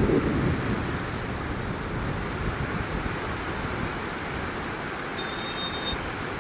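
Floodwater of the swollen Ghaggar river rushing past in a steady, even noise.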